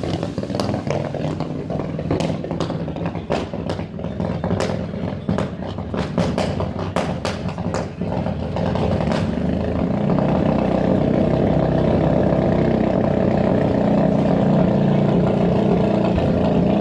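Mitsubishi Lancer Evolution's turbocharged four-cylinder engine with its exhaust popping and banging in rapid, irregular cracks for about the first nine seconds. After that the engine runs steadily with no more bangs.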